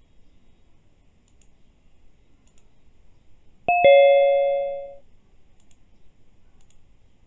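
A two-note chime: a higher note struck and a lower one right after it, both ringing out and fading over about a second.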